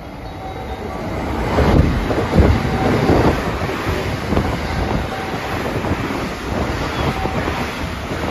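Electric rapid train running through the station at high speed without stopping: a loud rush of wheels and air that builds over the first second or two as the front arrives, with a string of heavy thumps from the wheels as the cars pass, and the slipstream buffeting the microphone.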